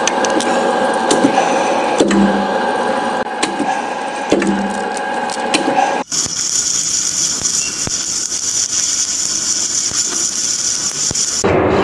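A thread-rolling machine running as its two grooved dies roll a thread onto a steel rod: a steady machine hum with scattered metallic clicks and dull knocks about two and four seconds in. About six seconds in it cuts abruptly to a submerged-arc welding tractor laying a seam under flux, a steady high hiss.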